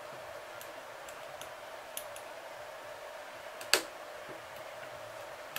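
Light scattered clicks of small metal parts and tools being handled on an Enya 90-4C model glow engine during disassembly, with one sharper click a little before four seconds in, over a steady faint background hum.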